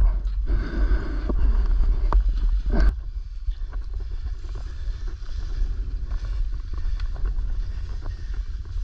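Wind buffeting the microphone as a steady low rumble, with a few sharp clicks and knocks in the first three seconds.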